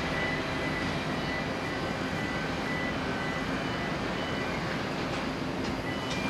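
Distant jet engines of a Boeing 787-9 on final approach: a steady rush of engine noise. The 787-9 is powered by GE GEnx-1B turbofans.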